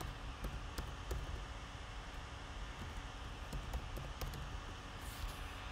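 Typing on a computer keyboard: a dozen or so irregular key clicks over a steady low background hiss, with a brief swish near the end.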